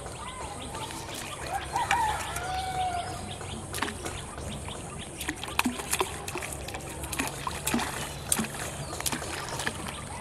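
Bird calls, including a drawn-out call in the first few seconds, over steady pond-side background noise; from about four seconds in come scattered sharp clicks and small splashes.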